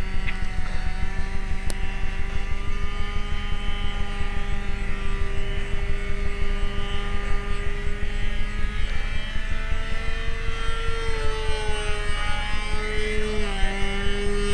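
Fox .45 two-stroke glow engine of an RC model airplane running steadily in flight. Its pitch rises around ten seconds in and dips briefly near the end as the plane moves about the sky.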